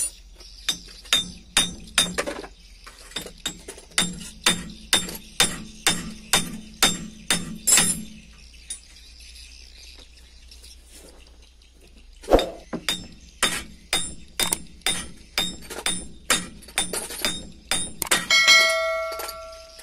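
Hammer blows on the metal front wheel hub of a Toyota during a front wheel bearing replacement, about two sharp strikes a second, stopping for a few seconds midway and then resuming. Near the end a short bell-like chime rings out.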